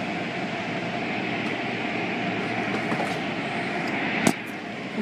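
Automatic car wash working over a car, heard from inside the car: spinning cloth brushes scrubbing the body and glass under water spray, a steady rushing noise. One sharp knock sounds near the end.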